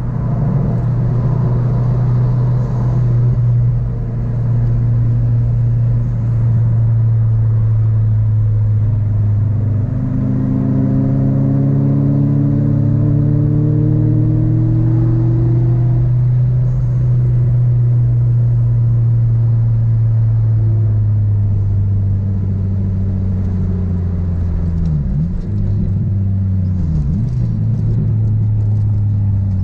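A car's engine and tyre noise heard from inside the cabin while driving: a steady low drone. About ten seconds in the engine note climbs slowly as the car speeds up, then eases off and wavers near the end as it slows.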